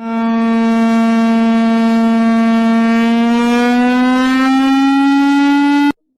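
Loud emergency-alert siren tone: a low, buzzy held note that slowly rises in pitch over the last few seconds, cuts off sharply near the end, then starts again at the lower pitch.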